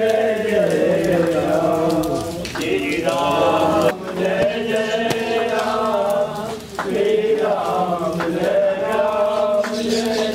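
Hindu devotional chanting: a voice intoning long, drawn-out lines, with two short breaks, over a steady low hum.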